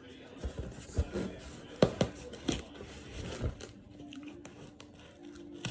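Small razor blade cutting and scraping through the tape and cardboard of a shipping box, in a series of irregular scratchy strokes and sharp ticks during the first few seconds.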